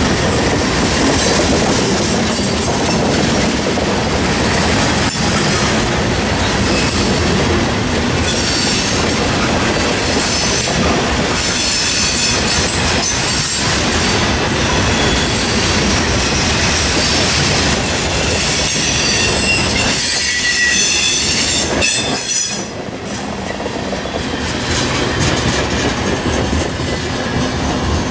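Freight train of gondola cars rolling past, steel wheels clattering over the rails, with high-pitched wheel squeal through the middle. About three-quarters of the way through the level drops as the last car goes by.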